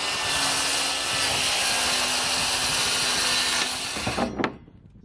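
Circular saw cutting through a sheet of plywood: a loud, steady saw noise that stops about four seconds in, followed by a sharp knock.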